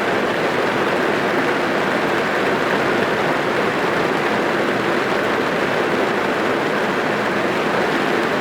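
Heavy rain falling on a car's roof and windows, heard from inside the car: a steady, dense hiss with no separate drops standing out.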